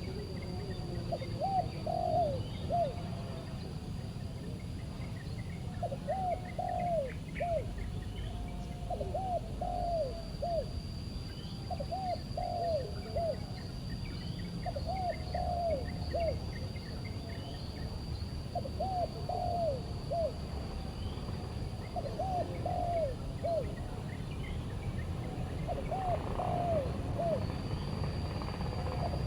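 Spotted dove cooing: a short three-note phrase, repeated about every three seconds.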